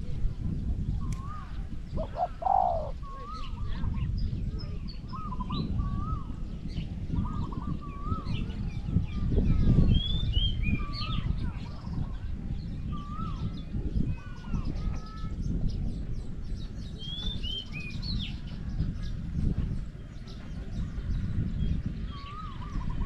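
Spotted doves cooing in short repeated phrases, with other small birds chirping now and then, over a steady low rumbling noise.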